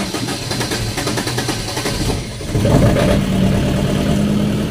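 Hard-starting diesel generator engine turned over by its starter with a fast rhythmic clatter, then catching about two and a half seconds in and settling into a steady run.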